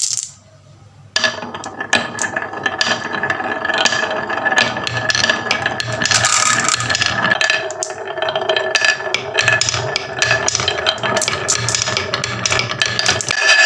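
Marbles rolling, rattling and clacking down a HABA marble run, dense rapid clicks starting about a second in, over a steady hum.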